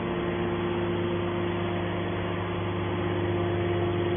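Hydraulic scrap metal shear's electric motor and pump running, a steady hum with a constant whine, with no cutting strokes.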